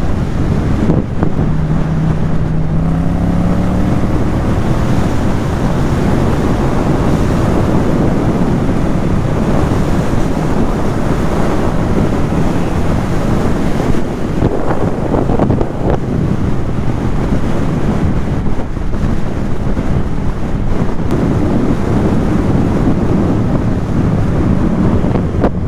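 Heavy wind rush over a helmet-mounted camera's microphone at road speed, with a Yamaha MT-07's parallel-twin engine running underneath. The engine note rises briefly a couple of seconds in as the bike accelerates.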